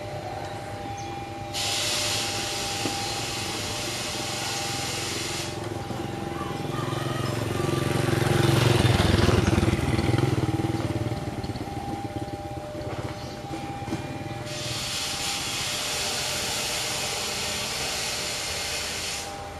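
Diesel locomotive approaching at speed: a low engine rumble that swells to its loudest about halfway through and then eases, under a faint steady two-note hum. Two spells of loud hiss start and stop abruptly, one near the start and one in the last few seconds.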